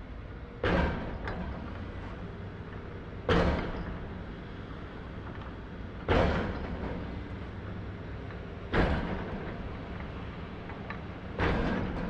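Heavy machinery banging: five loud bangs at an even pace, about one every two and a half seconds, each fading away over about a second, over a steady low machine hum.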